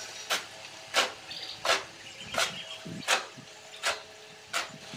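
A hand tool striking in a steady rhythm, a sharp hit about every two-thirds of a second, five or six in all.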